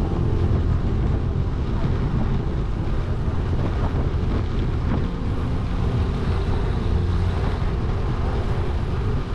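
Wind rushing over the microphone of a camera riding along on a road bicycle: a steady, low rumbling buffet with no breaks.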